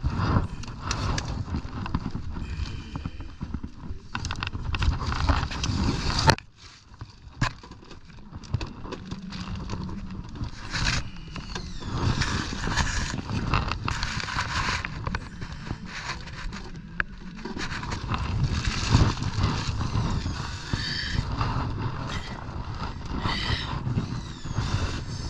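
Plastic tarp crinkling and rustling as it is handled and moved about, with scattered knocks, and a brief lull about six seconds in.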